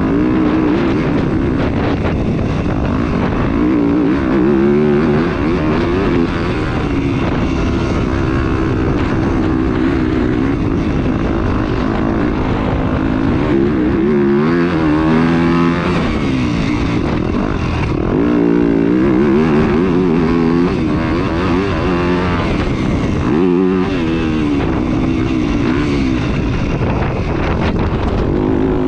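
Dirt bike engine heard from on the bike as it is ridden round a motocross track, the pitch climbing and dropping back every few seconds as the rider accelerates, shifts and rolls off for corners and jumps.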